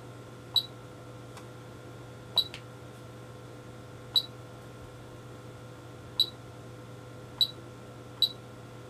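Agilent E3649A bench power supply's front-panel beeper sounding short high beeps as its buttons are pressed, six in all, one to two seconds apart and unevenly spaced. A faint steady hum runs underneath.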